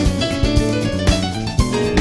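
Background music: guitar and keyboard over a steady drum beat.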